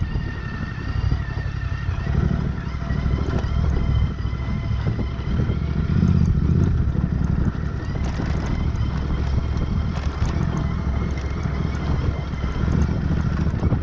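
Royal Enfield Interceptor 650's parallel-twin engine running steadily as the bike rolls down a rocky dirt track, with wind buffeting the microphone. Scattered clicks and knocks come from the bike over the stones, mostly in the second half.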